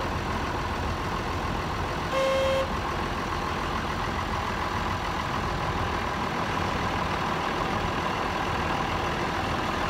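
John Deere tractor's diesel engine running steadily, with a short electronic beep about two seconds in.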